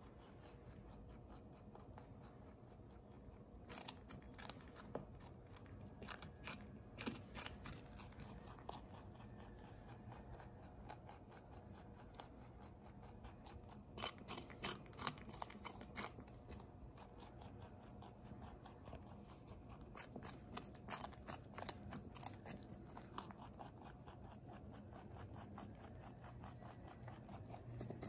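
Domestic rabbit crunching raw baby carrots: faint, crisp bites that come in quick runs every few seconds, with quieter chewing between.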